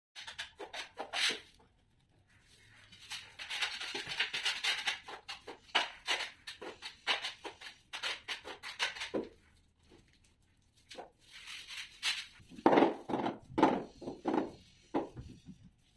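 Irregular rubbing and scraping with short knocks from hand work on the ceramic tiles of a kitchen counter; the loudest, duller knocks come a few seconds before the end.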